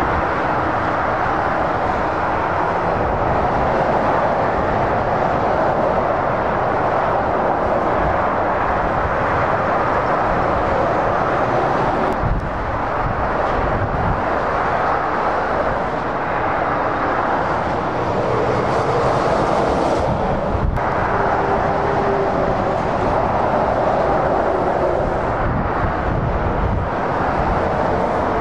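Continuous heavy motorway traffic: lorries and cars passing at speed, making a steady rushing noise that barely rises or falls.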